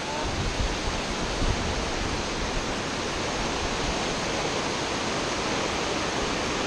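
Timberline Falls and the water cascading over the rocks below it, a steady rushing of falling and running water.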